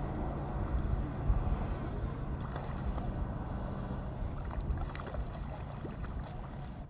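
Wind rumbling on the microphone, with a few faint clicks.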